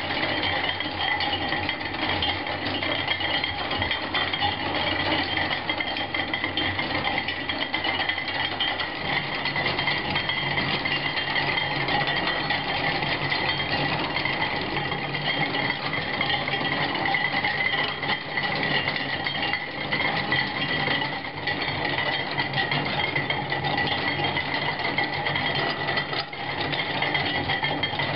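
Hand-cranked steel kinetic sculpture running, its gears, cams and linkages clattering in a continuous rapid rattle with a steady ringing hum, at an even level throughout.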